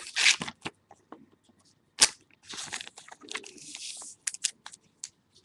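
Hands handling a trading card in a clear plastic sleeve: crinkling plastic rustles, with a sharp click about two seconds in and a few small clicks and taps near the end.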